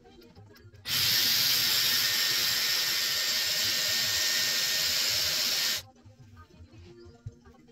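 Dyson Airwrap Multistyler blowing air through a curling barrel with hair wrapped around it: a loud, steady rush of air that switches on about a second in and cuts off suddenly about five seconds later.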